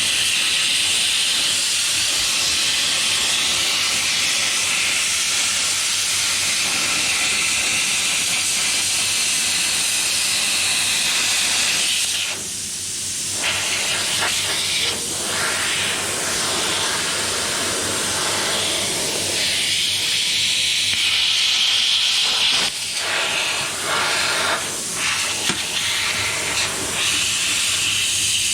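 Plasma cutter cutting sheet steel: a loud, steady hiss of the air-driven arc, broken by a short pause about twelve seconds in and a few brief stops and restarts near the end.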